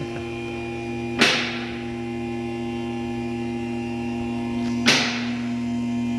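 A steady hum of several held tones, broken twice by a sharp knock, about three and a half seconds apart.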